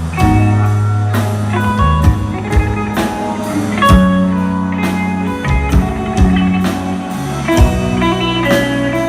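Live band playing an instrumental break: a guitar melody over held bass notes and a steady drum-kit beat.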